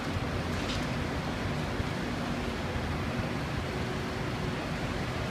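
Forklift running steadily while its hydraulic tri-lateral carriage swings the forks sideways: a steady low hum with a faint held tone.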